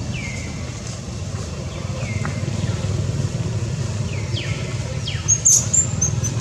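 Short, high bird chirps, each falling in pitch, repeated every second or two over a steady low rumble; a brief, sharp, very high squeak just past five seconds in is the loudest sound.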